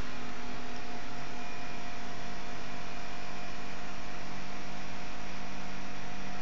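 A steady electrical-sounding hum with a constant hiss, unchanging in pitch and level.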